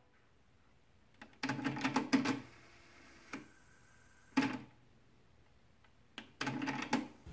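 Pioneer CT-W616DR cassette deck's transport buttons being pressed, its logic-controlled mechanism answering with clusters of clicks and brief mechanical whirs, four times over with pauses between.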